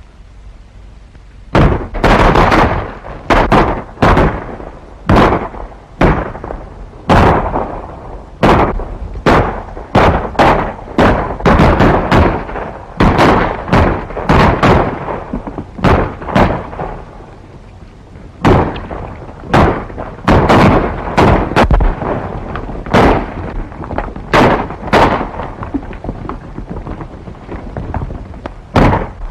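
Heavy, irregular gunfire: dozens of sharp revolver shots, often several a second, each with an echoing tail, easing off briefly about halfway through.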